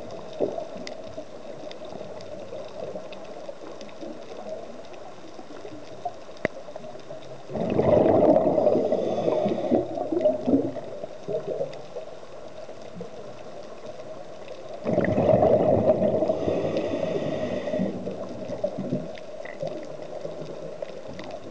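Scuba diver's exhaled regulator bubbles heard through the underwater camera, two long bubbling bursts several seconds apart, over a steady underwater hiss.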